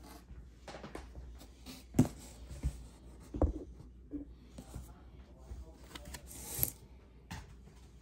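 Packaging being handled: rustling of cardboard and foam with a few short knocks, the sharpest about two seconds in and again about three and a half seconds in.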